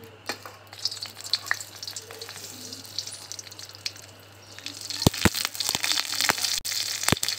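Tadka spices frying in hot mustard oil in a kadhai. Mustard seeds and dried red chillies crackle lightly at first. From about five seconds in, curry leaves hit the oil and bring a louder sizzle with sharp pops.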